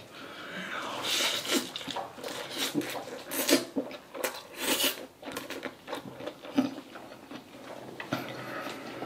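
A person eating jjajang ramyeon noodles close to the microphone: loud slurps in the first half, then chewing with wet mouth clicks.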